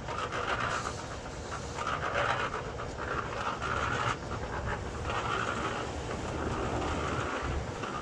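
Electric portable concrete mixer running, its drum turning a wet concrete mix that swishes and slops in a rough, uneven repeating rhythm over a steady low hum.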